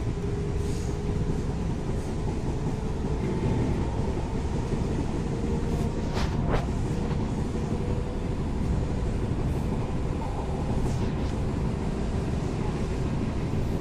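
JR West 221 series electric multiple unit (field-addition excitation control) running along the line: a steady rumble of wheels on rail and running gear, with a faint steady hum. A brief sharp click or squeal comes about six seconds in.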